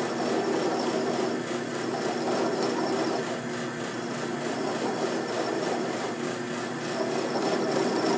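Drill press motor running at a steady hum while a hand-held tool grinds a groove into a piston spinning in its chuck, with a continuous scraping noise over the hum.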